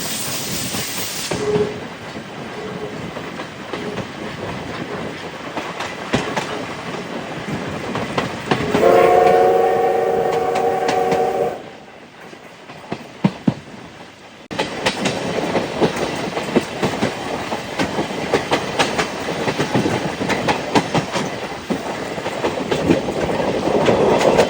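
A train running on the rails, with clicking and rattling from the wheels over the track. About nine seconds in, the train's whistle sounds one steady chord for nearly three seconds. The sound changes abruptly a few times, as between cut-together shots.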